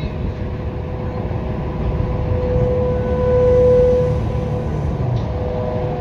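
Distant outdoor tornado warning siren holding a steady alert tone that swells louder about halfway through, then eases. A dense low rumble lies underneath.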